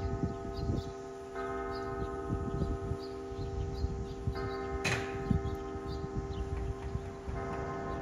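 Church bell in a cupola tower striking noon, one stroke about every three seconds, three strokes here, each ringing on long after it is struck. A sharp click comes near the middle.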